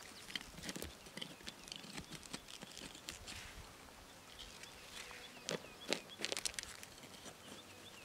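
Soft rustles and scattered sharp clicks of hands handling and cutting the leaves of çiriş plants (foxtail lily) on stony ground, with faint repeated high bird chirps in the second half.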